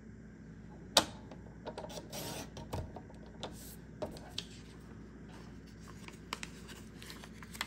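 Sliding paper trimmer cutting a notepad sheet: a sharp click about a second in, then a short scratchy swish of the blade through the paper, followed by scattered light clicks and paper rustling as the cut pieces are handled.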